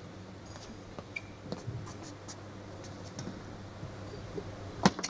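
Quiet hall with a low steady hum and faint scattered ticks while play is paused, then a sharp table tennis ball click near the end as play resumes.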